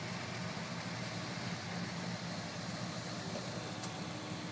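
Off-road vehicle engines running steadily at low revs, a low drone.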